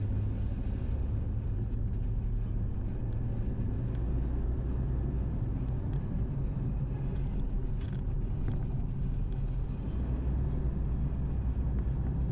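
Steady low rumble of a car's engine and tyres heard from inside the cabin while driving along a highway, with a few faint ticks.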